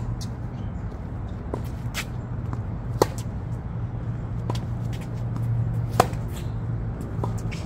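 Tennis rally on a hard court: sharp racket-on-ball hits from the near player about every three seconds, with fainter ball impacts from the far end of the court in between, over a steady low background rumble.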